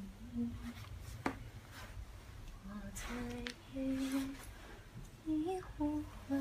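A person humming a simple tune in short held notes that step up and down, with a single sharp click about a second in.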